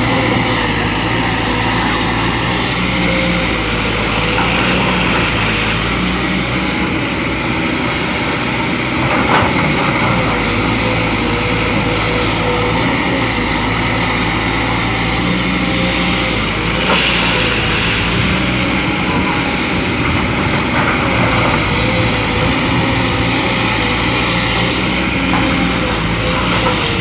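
Kobelco SK200 hydraulic excavator working: its diesel engine runs steadily under load, and a hydraulic whine rises and falls as the machine moves. Two short knocks come through, about a third of the way in and again past halfway.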